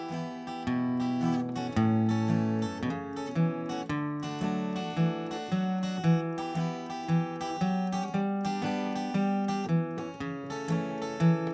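Acoustic guitar playing the introduction to a folk song, steady strummed chords in an even rhythm with no singing.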